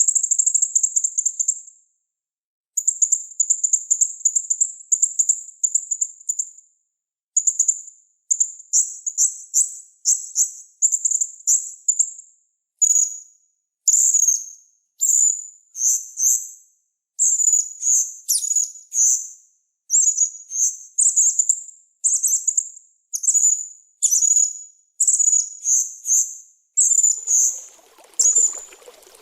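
Master-recording song of a small songbird: very high, rapid chirping trills, first in a long unbroken run, then in quick phrases of about a second with brief gaps. Near the end a faint trickle of water begins.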